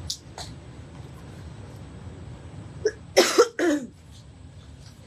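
A person coughing: a short cough of two or three quick bursts about three seconds in, the last with a falling voiced tail.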